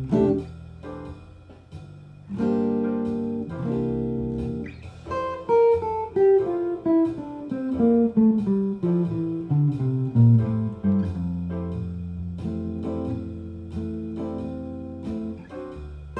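Jazz guitar playing a descending-scale practice exercise: two held chords, then a long run of single notes stepping steadily down the scale from about five seconds in.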